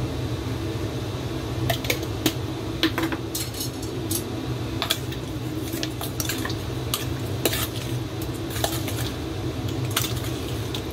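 A spoon clicking and scraping against a plastic tub while mixing raw chicken wings in soy-sauce marinade, in irregular clicks from about two seconds in, over a steady low hum.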